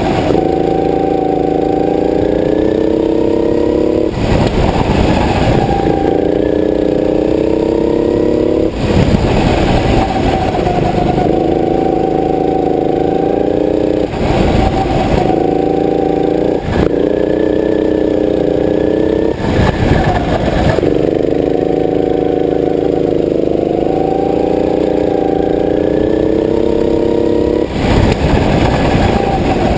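Go-kart engine running hard at high revs, its pitch climbing slightly as the kart speeds up. Several times the steady tone breaks off into a rougher, noisier stretch and then builds again, as the driver lifts off for the corners and gets back on the throttle.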